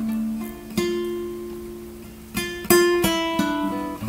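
Background guitar music: slow plucked notes and chords, each ringing out and fading.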